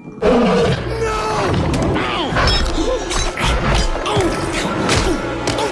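Dramatic film-score music with loud hits, crashes and sweeping glides, starting suddenly about a quarter second in.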